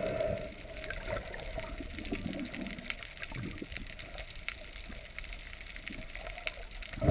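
Water sloshing and gurgling around an underwater camera just below the surface, with scattered small clicks and bubbling. It is louder at the very start and again at the end.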